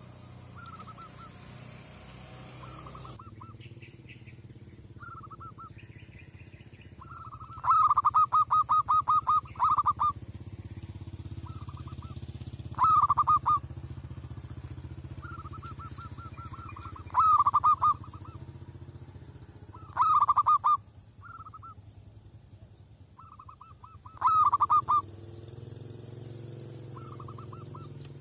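Zebra dove (merbok) cooing: repeated phrases of rapid staccato notes, some loud and long, others short and faint between them.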